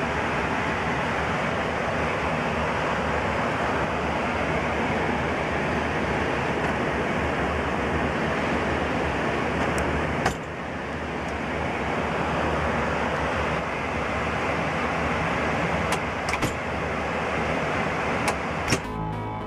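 Steady rushing noise of air and engines on an airliner's flight deck in cruise, with a sharp click about ten seconds in and a few softer clicks near the end. Music starts just before the end.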